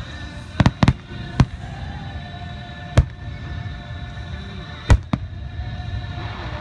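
Fireworks display, shells bursting in sharp bangs: a quick cluster within the first second and a half, a single bang about three seconds in, and a close pair near five seconds.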